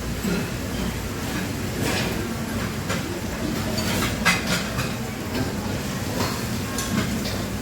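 Busy Chinese restaurant ambience: a steady low rumble with scattered clinks and clatters of dishes and utensils.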